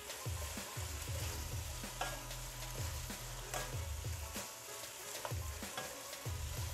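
Spam and baby green chilies sizzling in a sticky gochujang and corn-syrup glaze in a nonstick frying pan while being stirred with a wooden spatula. A steady sizzle runs under irregular soft knocks and scrapes of the spatula against the pan, about one or two a second.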